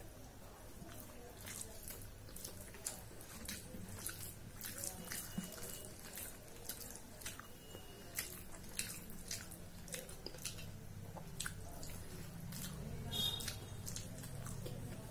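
Close-up eating sounds: many short wet clicks and smacks of the mouth chewing rice and curry eaten by hand, with the hand mixing rice on a steel plate.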